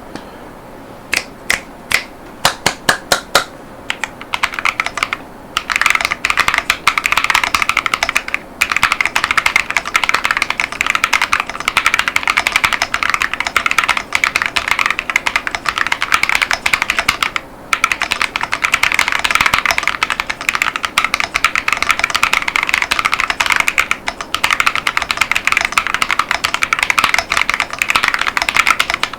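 Epomaker Tide 75 mechanical keyboard with KTT Baby Blue 38gf tactile switches and PBT keycaps being typed on: a dozen or so single keystrokes at first, then fast continuous typing from about five seconds in, with two brief pauses.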